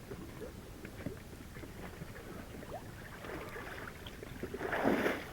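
Water sloshing and splashing in a hole in the ice, with small scattered knocks, and a louder rush of splashing near the end.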